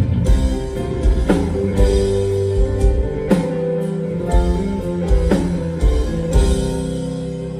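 Live rock band playing a slow ballad: keyboard, bass and drums. Held chords change about every two seconds, with a drum hit at each change.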